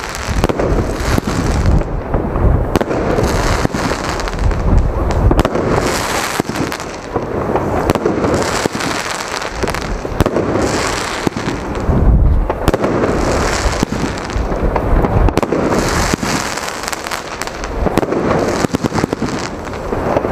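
Geisha Double Demolition firework battery firing: a dense, unbroken run of launch shots and bursting bangs that swells and eases in waves.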